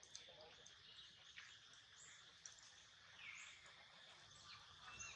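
Faint outdoor ambience: a steady high insect drone, with a few short high chirps and calls scattered through it, one of them a falling call about three seconds in.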